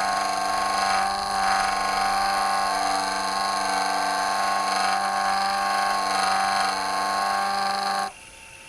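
A JoolTool lapidary machine's motor spinning a 20-micron diamond polishing disc at medium-low speed, with a wet stone held against the disc: a steady motor whine that cuts off suddenly near the end.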